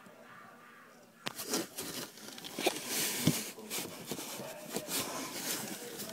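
A phone knocked about and scraped against the cardboard of a box as a cat paws and bats at it: from about a second in, a run of sharp knocks with rustling, scratching noise between them.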